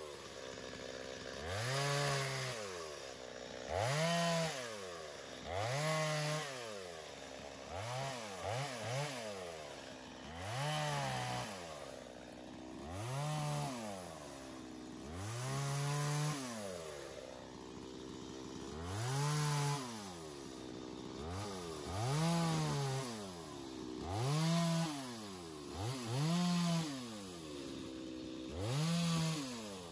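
Stihl MS250 two-stroke chainsaw bucking small cherry wood into firewood rounds. The engine revs up for a short cut and drops back to idle, about a dozen times, roughly every two to three seconds.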